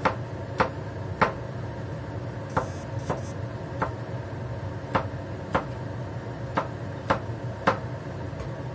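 Chinese cleaver chopping garlic on a cutting board: about eleven sharp knocks of the blade, spaced half a second to a second apart with a few short pauses.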